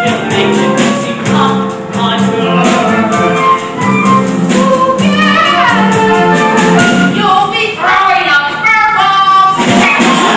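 A stage musical number: voices singing over instrumental accompaniment with a steady beat.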